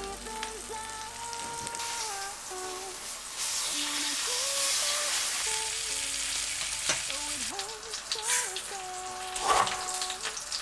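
Soft background music melody over a hissing noise that swells in the middle, with a few sharp clicks or knocks in the second half.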